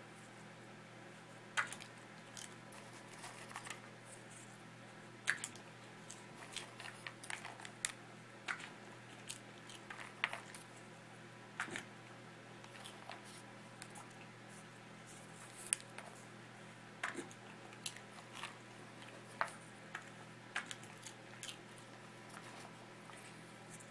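A small dog crunching and chewing popcorn: irregular short, crisp crunches and snaps, a few every couple of seconds, over a faint steady hum.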